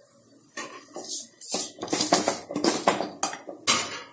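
Metal ladle scraping and knocking against a metal kadai while stirring onions being sautéed, about a dozen quick, irregular strokes starting about half a second in.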